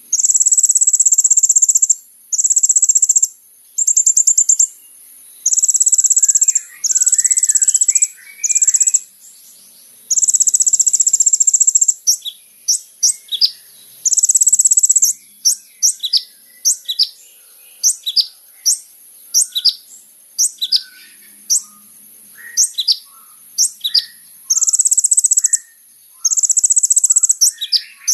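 Kolibri ninja sunbird singing: loud, very high, buzzy trilled phrases, then a long run of short sharp notes that each sweep steeply downward, then the trills again near the end. Under it all runs a steady, very high insect-like whine.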